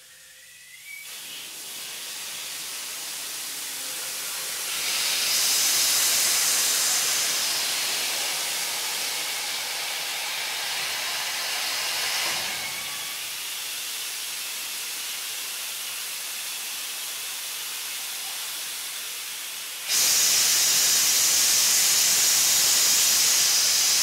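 Compressed air hissing steadily as it is released. It builds in the first second, swells about five seconds in, eases after about twelve seconds, then jumps suddenly louder about twenty seconds in.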